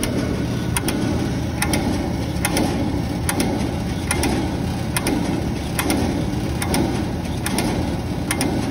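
Beckett AFII 150 oil burner running: a steady motor hum with a sharp tick repeating a little more than once a second.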